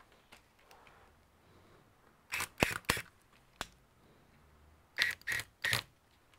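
Sharp clicks and snaps from hand work on an opened laptop: a quick group of three about two and a half seconds in, one more shortly after, and another group of three near the end.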